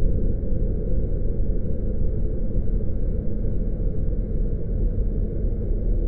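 Steady low rumbling drone of a scary haunted-forest ambience sound effect, with no distinct sounds standing out.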